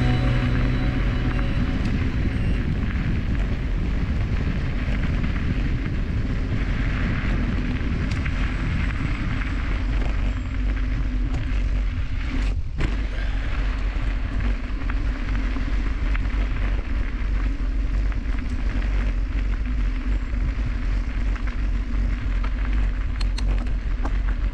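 Wind buffeting an action camera's microphone while riding a bike along a dirt trail: a steady rush and rumble with tyre noise underneath.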